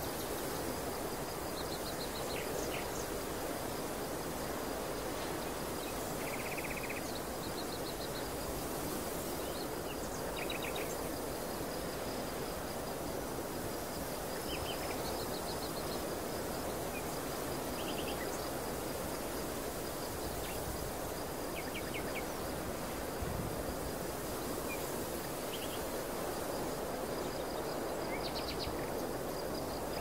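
Steady wind rushing across an open field of tall grass, with short bursts of small birds chirping every few seconds and a faint, steady high-pitched tone underneath.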